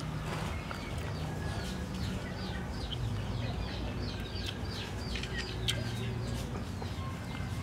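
Small birds chirping: a steady run of short, falling chirps, several a second, over a low steady rumble, with one sharp click about three-quarters of the way through.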